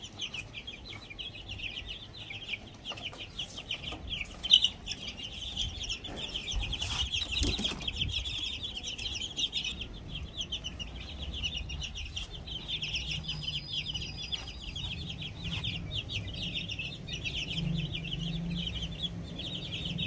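A group of barred Plymouth Rock chicks peeping nonstop, many quick high chirps overlapping.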